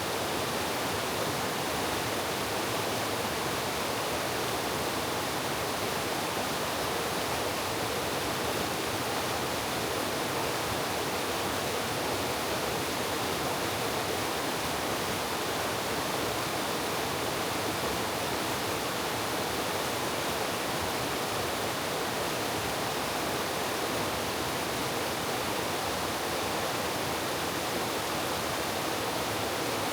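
Mountain valley stream running, a steady, unbroken rush of water.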